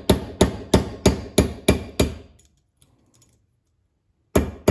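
Steel hammer striking a cut-down Allen wrench used as a punch to drive the cross-shaft pin out of a Ford 6F55 differential case: about seven quick metallic taps, roughly three a second. After a pause of about two seconds the tapping starts again near the end.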